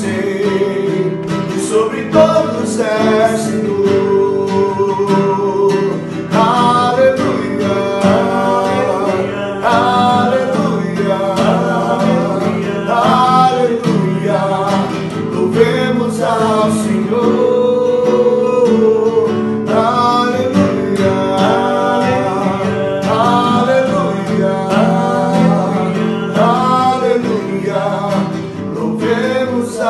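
Worship song played on strummed acoustic guitar, with a melodic vocal line over the chords.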